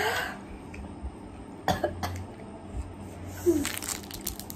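A woman coughing a few short times, her throat burning from extra-spicy chili noodles.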